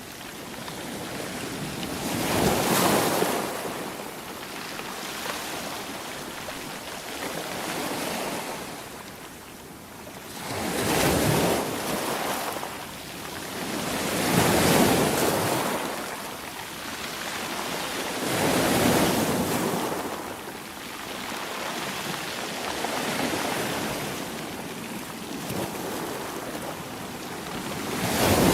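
Sea waves breaking and washing on the shore, a steady rush of surf that swells up with each wave every few seconds, the strongest crashes about three seconds in, around the middle and at the very end. Some wind on the microphone.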